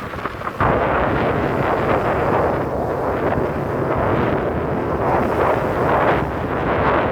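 Wind buffeting the microphone in a loud, rough, uneven rush that jumps up suddenly about half a second in and keeps on.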